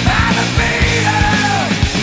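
Rock music soundtrack with a steady drum beat and a sung vocal.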